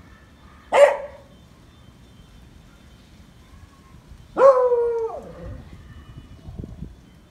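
A dog barking twice: a short, sharp bark just under a second in, then a longer, drawn-out bark about four and a half seconds in that drops in pitch as it ends.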